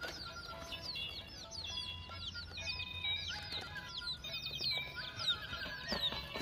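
Many birds chirping at once in a dense, overlapping chorus of short high chirps, with music.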